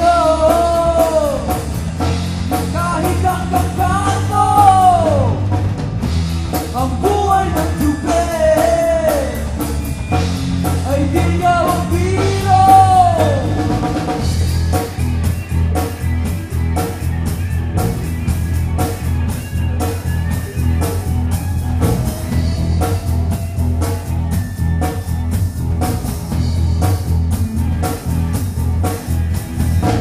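Live rock band playing: drum kit, bass and electric guitars, with a lead melody in long rising-and-falling phrases for about the first half, then a steady drum-and-bass groove.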